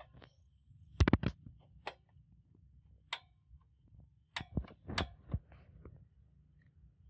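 Stainless steel pot clanking and clicking as it is set down and settled on the grate of a portable gas camping stove: a series of sharp knocks, the loudest cluster about a second in and a few more over the next several seconds.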